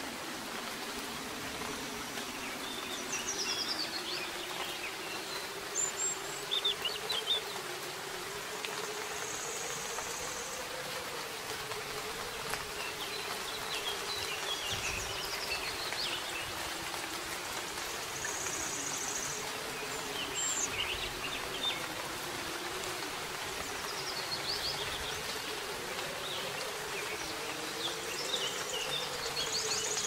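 Soft rain falling steadily, with small birds chirping and trilling in short clusters every few seconds. A low droning hum wavers up and down in pitch throughout, like a buzzing insect.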